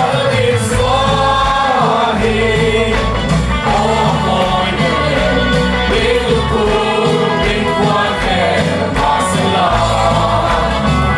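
Gospel song sung by a group of voices over a band with a steady beat.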